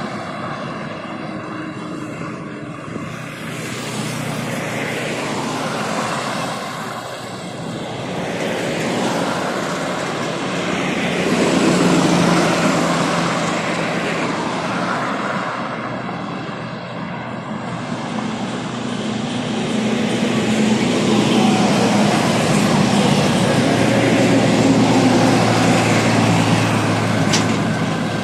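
Highway traffic passing: cars, motorcycles and a bus go by in swells of road and engine noise. Near the end the diesel engine of a farm tractor towing two high-sided trailers grows louder as it passes close.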